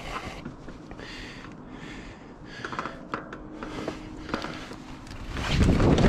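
Mountain bike riding down a dirt trail: scattered clicks and rattles from the bike over the ground, then a much louder rushing noise for the last second or so as the ride speeds up or runs through mud.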